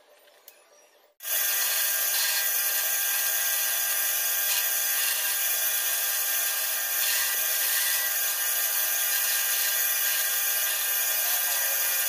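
Bandsaw running and cutting a block of pine, a steady loud saw noise with a constant whine that starts abruptly about a second in.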